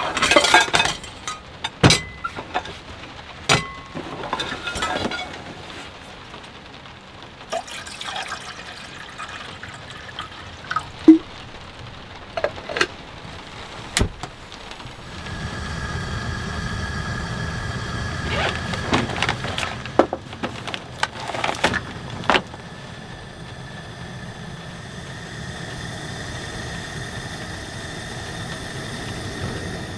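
Cooking gear being handled: scattered clicks and knocks, then from about halfway a steady rushing sound with a faint high tone running through it.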